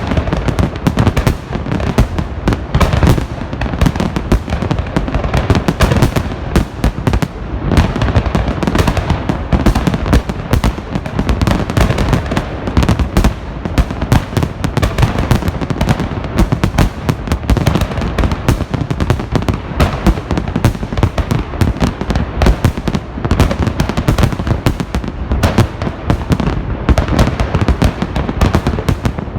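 Festive fireworks salute: a dense, unbroken barrage of overlapping bangs and crackling bursts, many per second.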